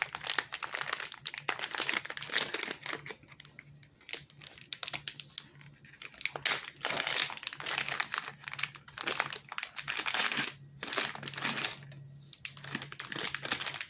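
Plastic packaging crinkling and rustling in irregular bursts as it is handled and opened, over a faint steady low hum.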